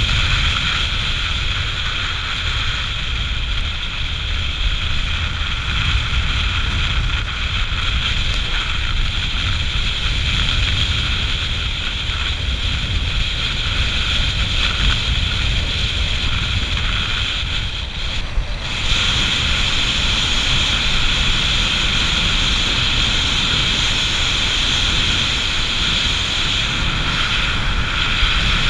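Motorcycle riding along a road: wind buffeting the camera microphone over the steady running of the bike's engine, with a brief dip about two-thirds of the way through.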